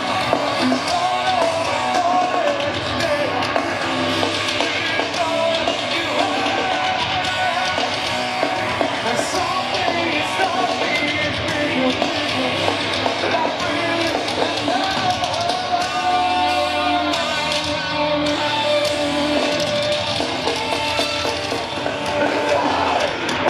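Rock band playing loudly with a singer and electric guitars, in a steady dense wash of sound.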